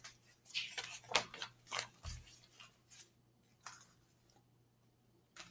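A page of a picture book being turned and smoothed: a string of short, faint paper rustles and crinkles, most in the first two seconds, then two more later on.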